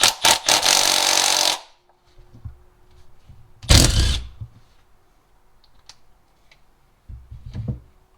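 A power tool runs in three short bursts while the oil filter housing is taken off: first a long run of about a second and a half, then a shorter, heavier burst, then a weaker one near the end.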